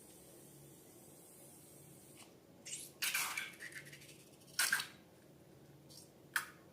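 A handful of short squishing and rustling noises from handling balloons and slime, starting about two seconds in, the longest and loudest just after three seconds.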